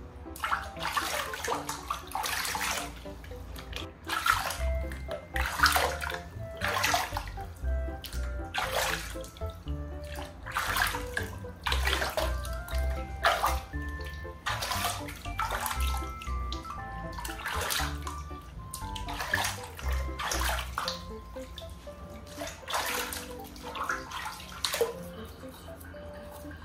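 Water splashing in a plastic basin as hands scoop it over a rooster's feathers and rub them, in repeated splashes about every second that stop near the end. Light background music plays underneath.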